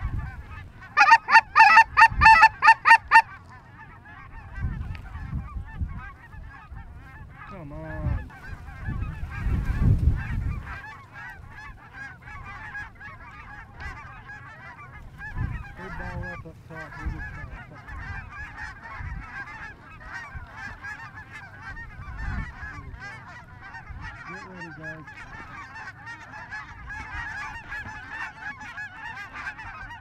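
A large flock of geese honking and calling continuously overhead. About a second in there is a run of loud, rapid honks, close and sharp. A low rumble comes about ten seconds in.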